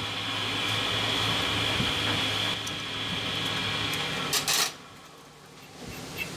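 Metal lathe running with a steady hum and a high whine, which stops about four seconds in. A short, loud noise burst follows as it stops, and after that only faint sound is left.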